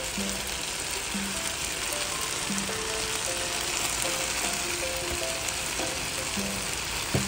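Fiddlehead fern greens and tomatoes sizzling steadily in a frying pan, with light background music over it and one brief click near the end.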